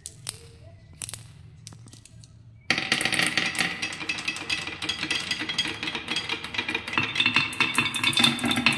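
A few light clicks, then, almost three seconds in, a sudden rapid clatter as a handful of marbles roll and knock down a wooden marble run, bouncing off wooden deflector slats and spinning into a wooden funnel bowl.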